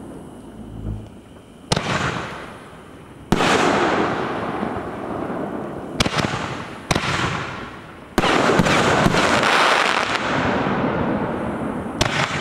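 Consumer aerial fireworks going off: a low launch thump about a second in, then about six sharp bursts at uneven intervals, each followed by a few seconds of dense crackling as the stars break and fall.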